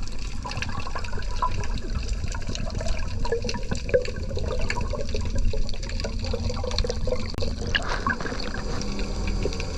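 Water sloshing and gurgling around the diver's camera, over a steady low rumble with many small clicks.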